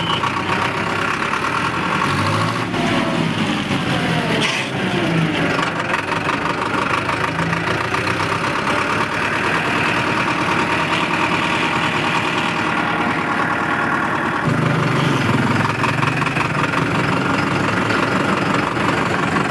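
Powertrac tractor's diesel engine running steadily while under way. Its note dips and rises about three seconds in and grows stronger and deeper about fourteen seconds in.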